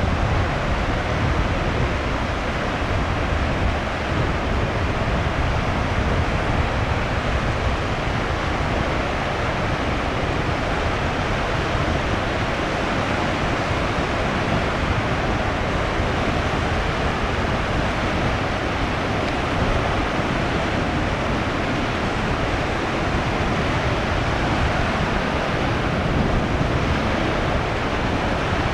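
High surf left by a passing typhoon breaking along the coast: a steady, unbroken wash of waves with a deep low rumble underneath.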